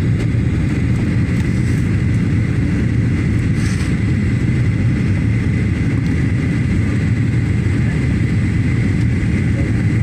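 Steady airliner cabin noise in flight: a deep, even rumble of engines and rushing air with a thin steady high tone on top.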